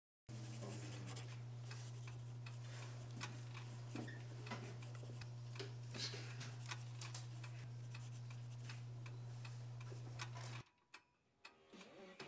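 Quiet classroom room tone: a steady low hum with scattered light ticks and taps. It cuts off about ten and a half seconds in.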